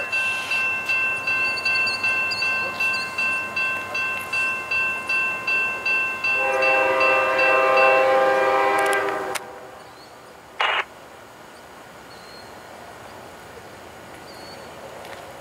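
A bell dings about twice a second, then an Amtrak GE P42DC locomotive's multi-chime air horn sounds one long blast of about three seconds that cuts off sharply. After a brief short burst, only a low steady noise is left.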